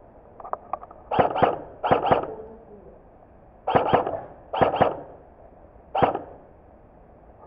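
Airsoft rifle shots, fired mostly in quick pairs: four double shots and then a single one, each a sharp crack with a short tail. A few faint clicks come just before the first pair.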